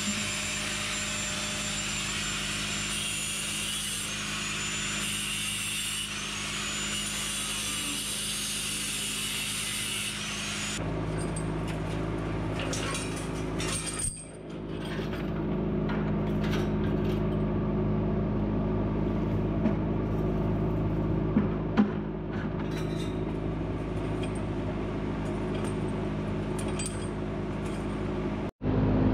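Angle grinder with a cutoff wheel running, its high whine dipping again and again as it bites into barbed wire and fencing wound around a flail mower's rotor. About ten seconds in, the sound cuts to a lower, steadier machine noise with a few clicks.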